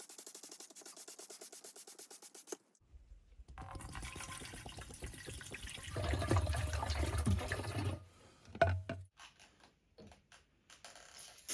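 Cleaning agent being sprayed onto the indoor heat pump unit's coil: a liquid rushing and hissing, loudest a little past the middle. It is followed by a few scattered knocks, and opens with a quick, even ticking.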